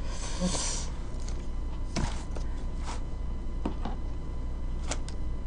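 A handful of separate clicks and taps on a computer keyboard and mouse, about six in five seconds with the sharpest about two seconds in, over a steady low electrical hum, with a short rustle near the start.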